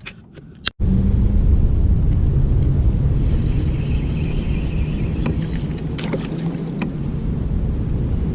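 Steady low rumble of wind and water on the microphone of a kayak out on the lake, starting abruptly about a second in, with a few light clicks.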